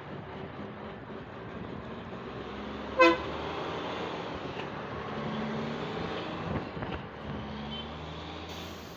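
Diesel engine of a loaded dump truck running as it pulls away down the road, with one short horn toot about three seconds in, the loudest sound.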